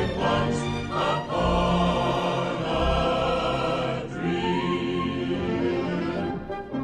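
Choir singing over a full orchestra in a film-score main title. The sound thins out about four seconds in.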